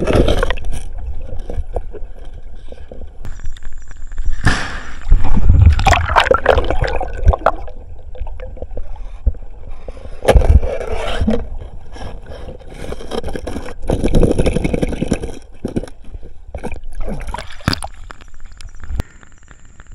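Water splashing and sloshing in irregular bursts, with a hooked fish thrashing at the surface near the end.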